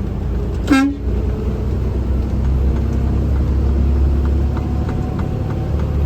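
Steady engine and road rumble of a vehicle driving, heard from inside the cab, with one short pitched tone just under a second in.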